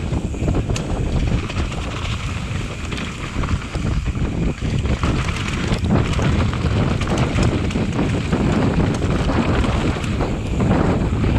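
Wind rushing loudly over the microphone of a mountain bike speeding down a downhill race track, with rumble and frequent short knocks and rattles from the bike over the rough ground.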